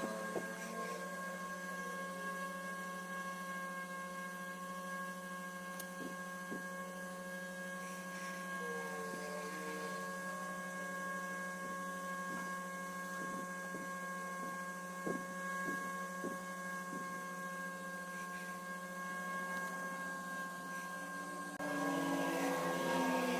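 A steady electrical hum, with a few light clicks scattered through it. Near the end a louder rustling noise joins in.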